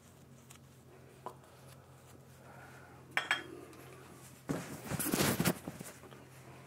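Light knocks and clinks of toiletry items being set down on a ceramic bathroom sink, with a sharper ringing clink about three seconds in. A louder rushing noise follows about a second later and lasts about a second.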